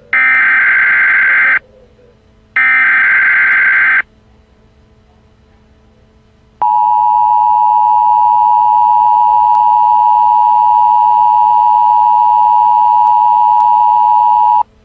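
Emergency Alert System broadcast tones: two digital data bursts of about a second and a half each, then after a short pause the EAS attention signal, two steady tones sounded together, held for about eight seconds and cutting off sharply.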